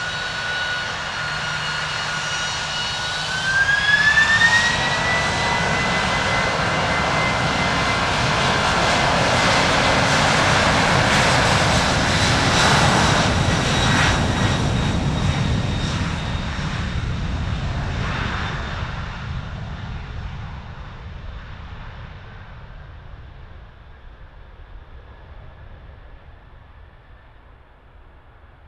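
Boeing 767-300ER's twin General Electric CF6 turbofans spooling up to takeoff thrust: a whine that climbs in two steps over the first few seconds. A loud jet roar follows as the airliner accelerates past on its takeoff roll, then fades steadily as it moves away down the runway.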